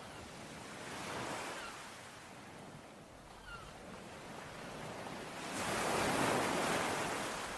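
Sea waves breaking and washing on the shore: a smaller wave about a second in and a bigger, louder one in the last couple of seconds. A single faint bird chirp comes between them.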